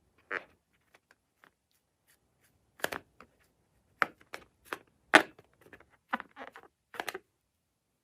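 Short, irregular squishes and clicks, about a dozen scattered over several seconds, the sound of slime and balloons being handled.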